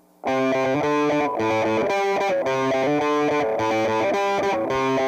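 Background music: a distorted electric guitar playing a rhythmic chord riff, starting suddenly just after the start out of near silence.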